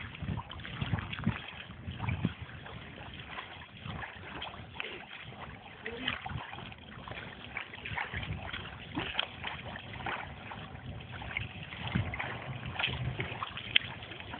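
A small motorboat approaching across the water, heard under gusty wind noise on the microphone.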